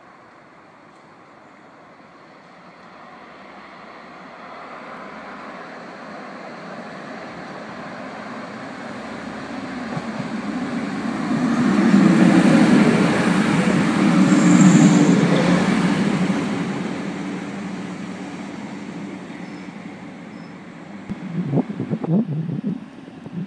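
Diesel multiple unit passenger train approaching and passing close by: engine and wheel noise builds to a peak about halfway through and then fades away, with a brief high squeal at the loudest moment. A few short low thumps near the end.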